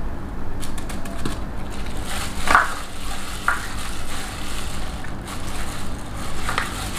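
A gloved hand squeezing and stirring wet ground fish paste in a stainless steel bowl, giving an irregular squelching and scraping, with a few light clicks against the bowl.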